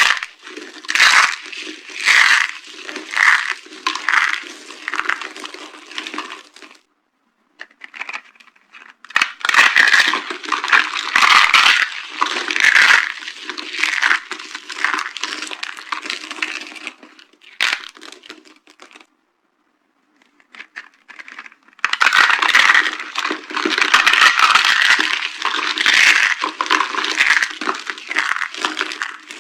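Dry soap boxes being crushed, crunching and crackling with many sharp snaps, in three long bouts separated by brief pauses at about 7 and 20 seconds in.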